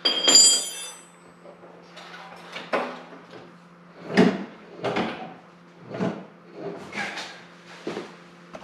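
Metal clank with a short ringing at the start, then knocks and scrapes about once a second from a floor jack being handled and set under the ATV's hitch. A steady low hum sits underneath.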